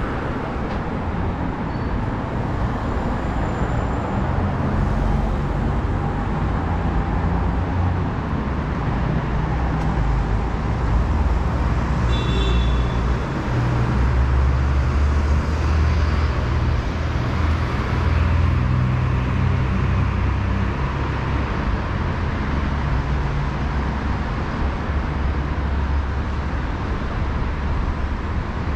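Steady city road traffic: cars and buses passing with a continuous low rumble of engines and tyres, and a brief high-pitched squeal about twelve seconds in.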